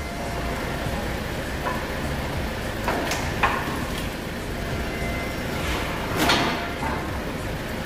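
Styrofoam-factory machinery running with a steady noise, broken by short hissing bursts about three seconds in and a louder one a little after six seconds.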